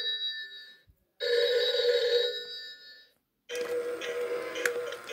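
Animatronic chameleon novelty telephone ringing: two rings of about a second each with a short gap between them. After a pause, near the end, its built-in song starts, with a few sharp clicks.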